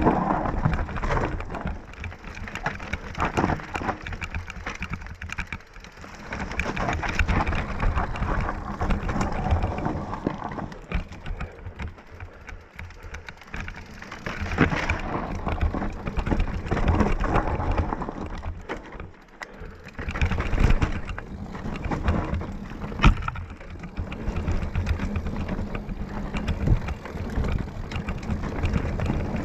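Mountain bike riding down a dirt forest trail: tyres crunching and crackling over dirt, leaves and stones, and the bike rattling over bumps, with a low rumble of wind on the camera's microphone. The noise swells and eases with the terrain and dips quieter a couple of times.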